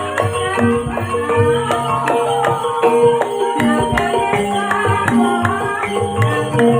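Live Banyumas ebeg accompaniment: tuned percussion playing a steady run of struck, ringing notes over hand-drum beats, as traditional Javanese music.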